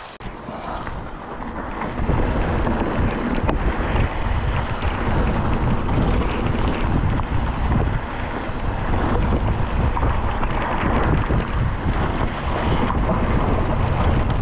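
Wind buffeting the microphone over the rattle and tyre noise of a mountain bike descending a rough, muddy downhill trail, growing louder about two seconds in and then holding steady.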